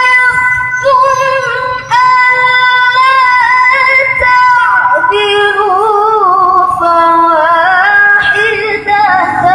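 A girl's high voice reciting the Quran in melodic tilawah style, holding long ornamented notes. The pitch drops lower about halfway through and climbs again near the end.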